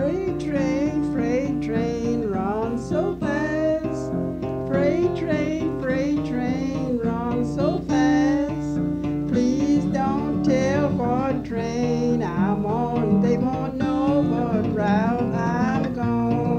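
Acoustic guitar music: a steady plucked accompaniment with a wavering melody line that bends in pitch above it.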